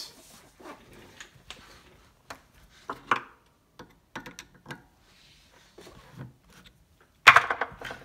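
Hands gripping and unscrewing a 7-inch resin fiber sanding disc and its stiff backing pad from a stopped motor's threaded arbor: scattered light clicks and rubbing, with a louder rasping rub lasting about half a second near the end.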